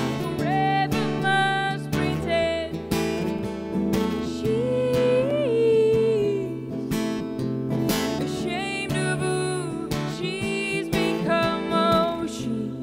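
A woman singing to her own strummed acoustic guitar, holding one long note in the middle.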